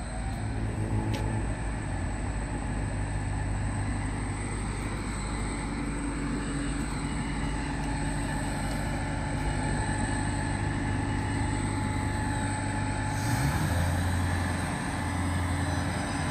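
Diesel passenger railcar's engine running at a station platform: a steady low drone that shifts to a different, deeper note about thirteen seconds in.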